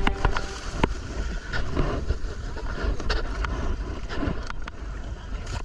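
Wind buffeting the microphone over sea water washing around a kayak, with a few sharp knocks scattered through.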